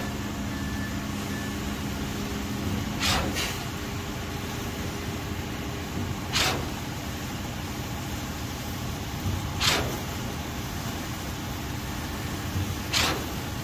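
A heavy engine running steadily, with a short, sharp burst of noise repeating about every three seconds.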